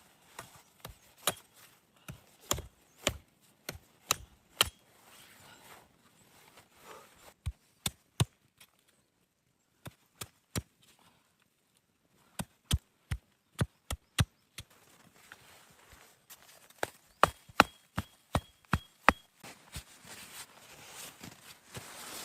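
Axe or hatchet chopping wood: a series of sharp, hard strikes, about two a second, in clusters broken by pauses, loudest in a run of blows late on.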